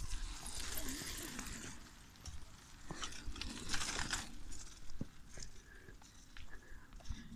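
Wind rumbling on a phone microphone carried while riding a bicycle along a dirt road, with patches of hiss from tyres on gravel near the start and again around the middle, scattered clicks, and brief faint voices early on.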